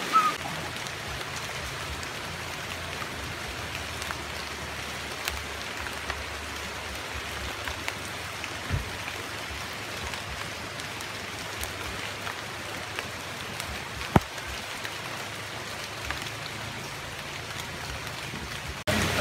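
Steady rain falling, with a few scattered sharp drops or knocks, the loudest about fourteen seconds in. It cuts off suddenly near the end.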